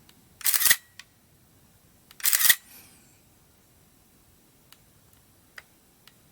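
Pentax SLR camera releasing its shutter twice, about two seconds apart. Each release is a quick double clack of mirror and shutter. A few faint small clicks come between them.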